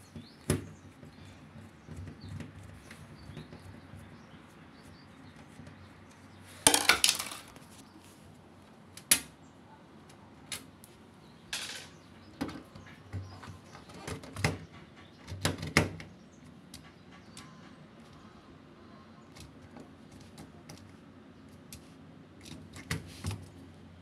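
Screwdriver and hands working on an LG front-loading washing machine's door switch assembly: scattered clicks, taps and scrapes of metal on plastic, with a louder rattling scrape about seven seconds in and another cluster of knocks about halfway through.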